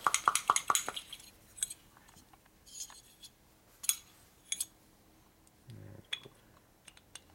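Steel wrist pin clinking in an aluminium piston's pin bore as it is worked in and out by hand: a quick run of ringing clicks, about five a second, for the first second, then scattered single clicks.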